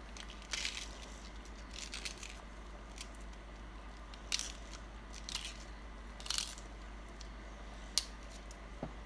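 Raw cabbage being pinched and snapped into small pieces by hand, giving short crisp crunches every second or so over a faint steady low hum.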